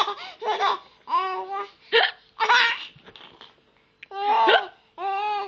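A baby laughing in short, high-pitched bursts, set off by a woman's hiccups, which come as brief sharp gulps between the laughs.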